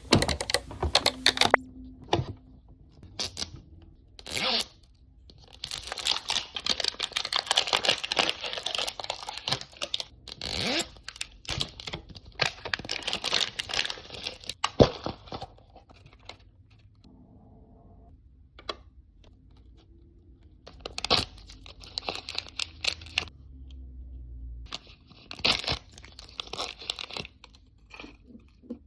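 Plastic Mini Brands packaging being torn open and crinkled in long stretches, with quieter pauses and a few sharp clicks and taps between.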